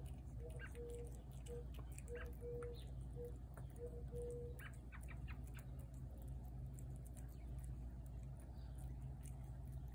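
A cat eating from a plate close by, its chewing making many small wet clicks. In the first half a bird repeats one short, steady, lowish note about ten times, and a faint steady hum runs underneath.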